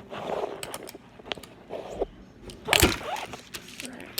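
Fingerboard (miniature finger skateboard) clacking on a hard surface: a short rolling scrape near the start, a sharp click just over a second in, and a louder clatter of board and wheels striking down near the three-second mark.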